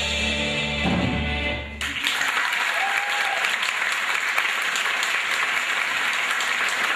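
A live band holds the song's final chord, then about two seconds in the audience breaks into sustained applause.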